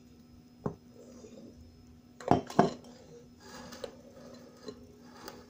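Glass bowls and a spatula clinking: a light knock just under a second in, two sharp knocks close together a little past two seconds, then a few softer taps as egg yolk batter is folded into whipped egg whites in a glass mixing bowl.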